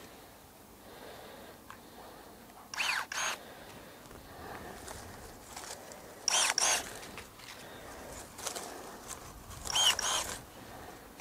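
Irega IRG23 battery bypass pruning shears cutting bay laurel branches: three cuts about three and a half seconds apart, each a quick double whir of the motor.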